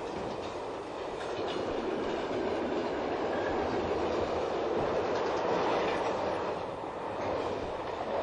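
Train running on the line: a steady rumble of wheels on rails with a few faint clicks.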